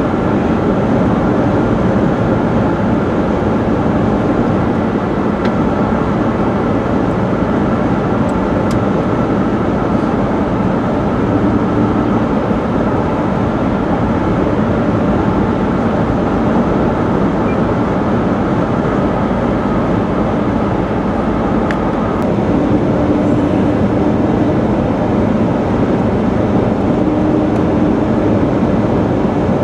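Steady road and engine noise of a moving car, with a faint low hum that comes and goes a few times.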